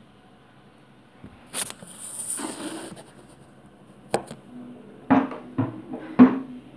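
Handling noise as a phone is picked up: a click and a rustle of cloth, then sharp clicks. Near the end, three knocks against an acoustic guitar, with a low string left ringing faintly.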